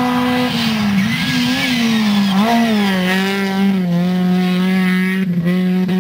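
Volkswagen Golf rally car's engine running hard through a gravel corner. The engine note holds high, then drops and wavers about a second in, as the driver lifts and gets back on the throttle. It settles at a lower, steady pitch as the car pulls away.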